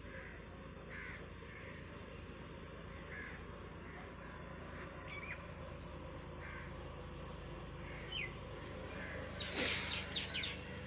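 Crows cawing repeatedly, short calls every second or two, over a steady low hum. A brief cluster of sharp clicks comes near the end.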